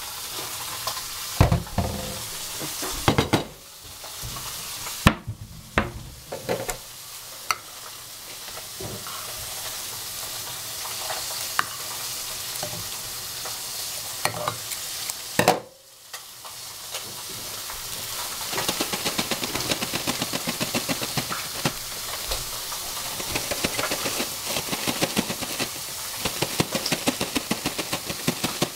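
Kitchen handling sounds over a steady hiss: several sharp knocks and clatters of a steel pot and a plate, then scissors cutting a wet plastic boil-in-bag rice pouch. From about 18 s on, a fast run of crinkles and ticks as the bag is shaken and the cooked rice slides out onto the plate.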